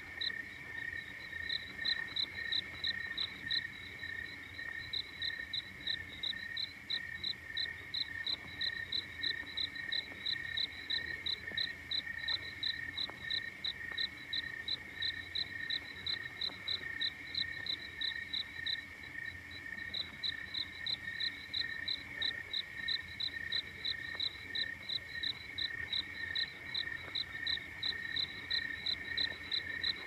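Insects chirping in a steady chorus: a higher chirp repeating about three to four times a second over a lower, continuous trill that pulses more slowly. The higher chirping fades briefly about two-thirds of the way through, then resumes.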